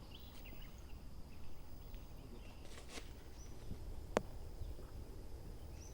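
A single sharp click of a golf club striking the ball on an approach shot, about four seconds in, over faint outdoor ambience with a steady high tone and a few short high chirps.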